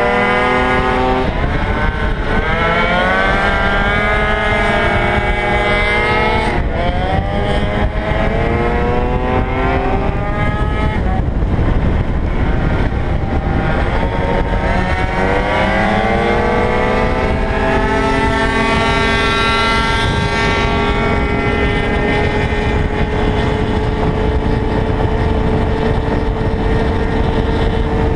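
Gilera Runner FX scooter's two-stroke engine, bored out to 172 cc, heard from onboard at speed: the engine note rises and dips several times, then climbs and holds one steady high note for the last third. Heavy wind rush on the microphone underneath.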